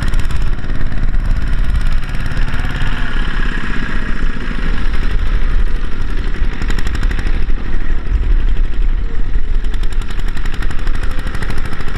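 Two-wheel walking tractor's single-cylinder diesel engine running under load with a rapid, steady chugging knock, pulling a trailer loaded with sacks of rice over rough ground. Loud throughout.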